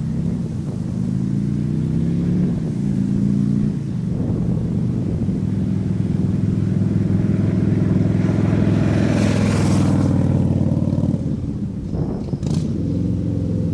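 Harley-Davidson Street Glide V-twin running through open Rush Big Louie slip-on mufflers with the baffles removed, accelerating and shifting up through the gears out of view. Its pitch climbs in steps and is loudest about eight to ten seconds in, then eases off.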